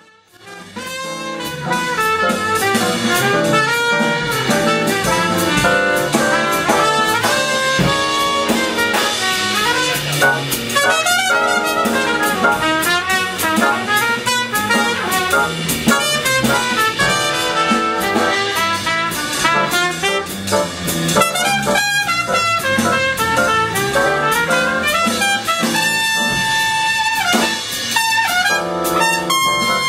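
Jazz ensemble playing with trumpets, trombones and saxophones over a drum kit, brass leading and the full band coming in about a second in.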